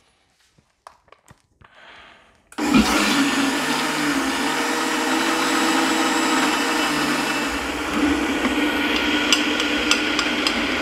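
Countertop blender switched on about two and a half seconds in, its motor running steadily as it blends a shake of skyr, banana and protein powder while oats are poured in bit by bit through the lid opening. A few light clicks come near the end.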